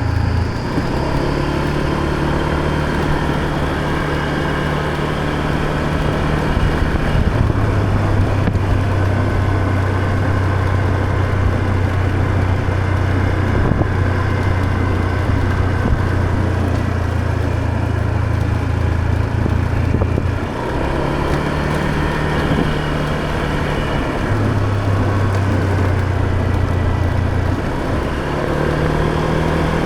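Motor scooter engine running under way. Its steady low note holds, then shifts to a new pitch several times, over steady wind and road noise.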